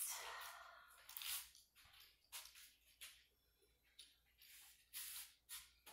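Near silence: room tone with a few faint, short, soft noises about a second apart.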